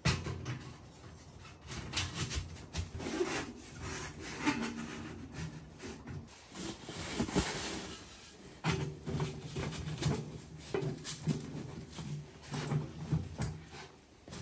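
Sections of an old, rusty metal stovepipe being fitted together and pushed up through the tent's stove jack: irregular scraping and rubbing of metal on metal, with occasional light knocks.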